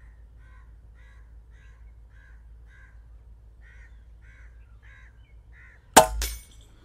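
A bird calling in a steady series of short, evenly spaced calls, about three a second. About six seconds in, a P15 air rifle fires with a loud sharp crack, followed a moment later by a second crack.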